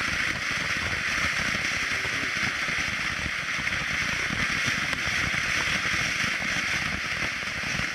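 Ground fountain firework spraying sparks: a steady hiss with dense fine crackling.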